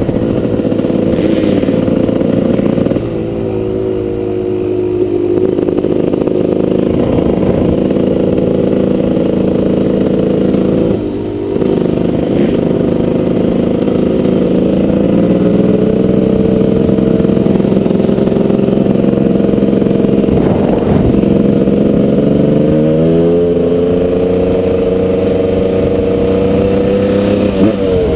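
Gas Gas dirt bike engine under way, its pitch rising and falling with throttle changes and gear shifts. About eleven seconds in the throttle closes briefly, and near the end the engine revs up, then drops.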